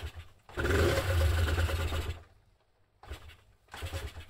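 Honda NS250F two-stroke twin in a start attempt after its carburettor overflow repair: one loud burst lasting about a second and a half, then several short, weaker pulses near the end without settling into an idle.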